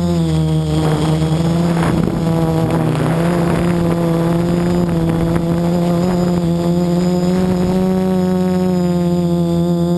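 Quadcopter's electric motors and propellers whining steadily, heard close up from the drone's own onboard camera; the pitch dips slightly about half a second in and rises a little about three seconds in.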